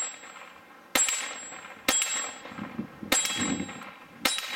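Four shots from a Browning Buck Mark .22 LR pistol, about a second apart. Each shot is followed by the clang of a hanging steel silhouette target being hit, ringing briefly after each hit.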